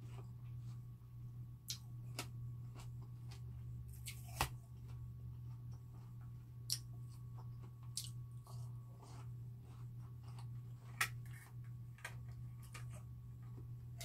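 Close-up mouth sounds of chewing juicy watermelon, with short wet clicks and crunches every second or two; the sharpest come about four seconds in and again about eleven seconds in. A low steady hum runs underneath.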